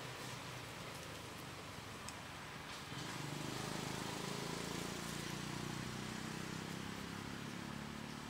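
Steady outdoor background hiss with a few faint clicks, and a low hum that swells about three seconds in and holds to the end.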